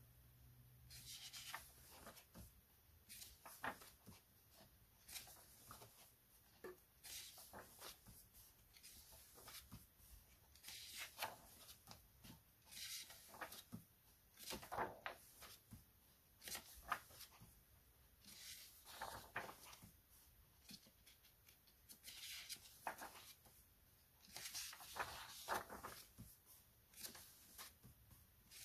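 Pages of a softcover colouring book being turned, with a hand sweeping across the paper to flatten each page: soft papery swishes and rustles every second or two.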